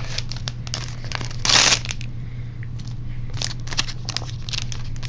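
Foil booster pack of trading cards crinkling and crackling as it is pulled from the box and torn open, with one loud burst of crinkling about a second and a half in.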